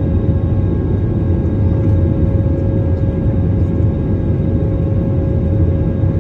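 Airbus A320neo engines and airflow heard inside the cabin during the climb after takeoff: a steady deep rumble with a constant humming tone above it.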